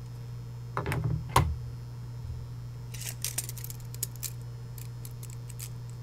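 Steel tape measure being picked up and its blade pulled out: a couple of knocks and a sharp click about a second in, then a scatter of light clicks and ticks. A steady electrical hum runs underneath.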